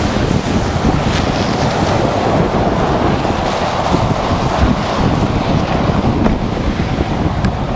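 Strong wind buffeting the microphone: a loud, steady rushing noise with rapid low thumps.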